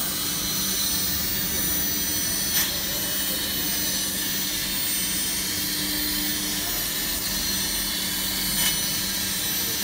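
CNC fiber laser cutting machine cutting thick steel plate: a steady hiss from the cut, with a low machine hum beneath it. Two brief sharp snaps come about two and a half seconds in and again near the end.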